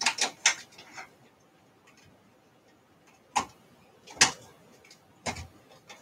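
About half a dozen short clicks and knocks, irregularly spaced, from computer hardware being handled: the floppy drive's ribbon cable and its connector being fitted to an I/O card.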